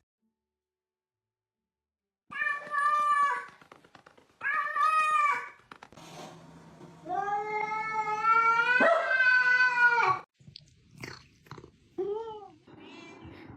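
A cat meowing: two meows of about a second each, then a long drawn-out yowl of about three seconds, then a few short meows near the end.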